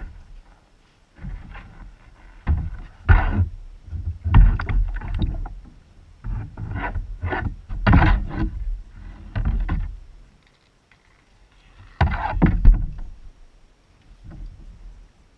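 Kayak being paddled and handled on the water: irregular bumps and knocks against the hull in uneven bursts, with a quieter spell about two-thirds through.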